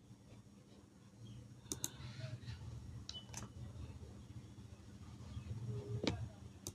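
A handful of faint computer-mouse clicks, spread out with pauses between them, over a low steady background hum.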